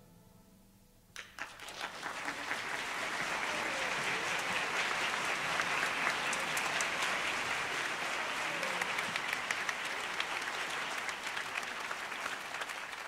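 Audience applauding, starting suddenly about a second in after a moment of silence and holding steady.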